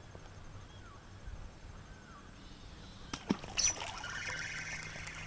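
Faint water splashing and sloshing, starting with a sharp splash about three seconds in and trailing off over the next two seconds. Before it come a few faint, short chirps.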